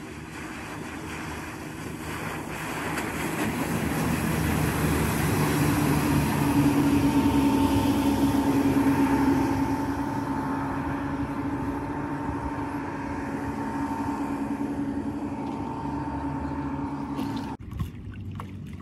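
Twin Evinrude E-Tec 115 two-stroke outboard motors driving an aluminum landing-craft boat at speed, with a steady engine note and rushing water. The sound grows louder as the boat comes close, about halfway through, then eases as it moves off. Near the end the engine sound stops abruptly, leaving quiet water lapping.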